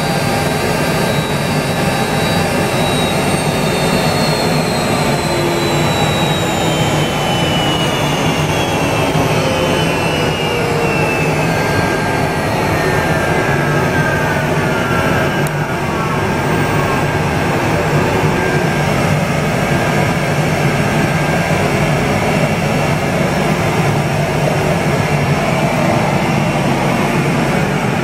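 CNC router spindle and cutter milling grooves into an MDF panel: a loud, steady machining noise over a constant low hum. Partway through, a whine slides slowly down in pitch over several seconds.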